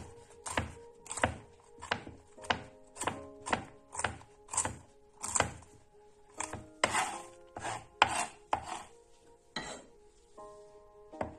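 Kitchen knife chopping walnuts on a wooden cutting board: a run of sharp knocks, about two a second, that stops near the end. Faint background music runs underneath.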